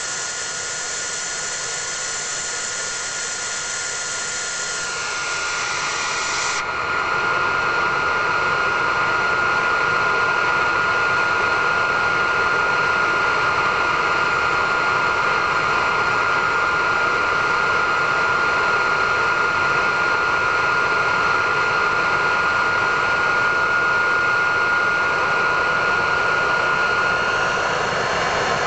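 54 mm model turbojet engine running steadily at about 85,000 rpm: a constant high whine over a rushing roar of jet exhaust, growing louder about six seconds in.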